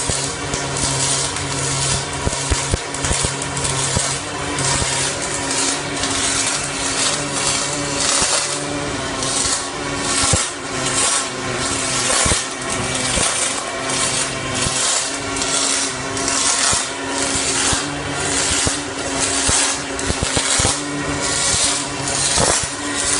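MIG welding arc on stainless steel, a continuous crackling hiss that swells and fades in a regular pulse a little under twice a second, over a steady machine hum.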